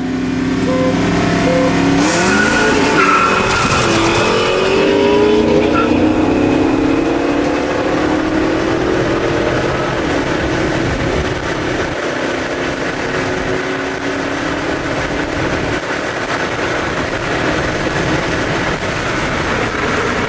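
Street drag race: car engines revving up at the launch about two seconds in with a short burst of tyre squeal, then running hard under full throttle.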